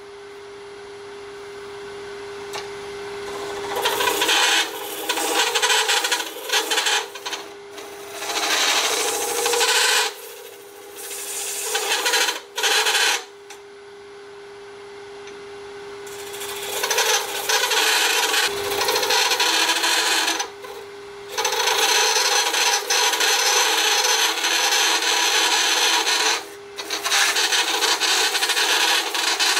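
A turning tool cutting a spinning Alumilite cast-resin blank on a lathe: a rasping scrape in irregular bursts as the tool engages and lifts off, then near-continuous cutting in the second half with two short breaks. A steady hum from the lathe runs underneath.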